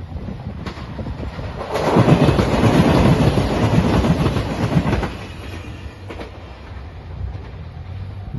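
A train rushing past at speed on the line at a level crossing, loud for about three seconds from about two seconds in, then falling back to a low rumble.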